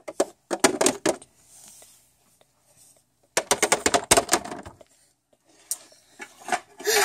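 Small plastic toy figures clattering and tapping as they are moved by hand, in two quick runs of clicks of about a second each, with a few scattered taps later.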